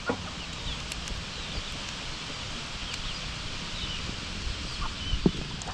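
Outdoor ambience: many short, high bird chirps over a steady low rustle of wind, with a single knock near the end.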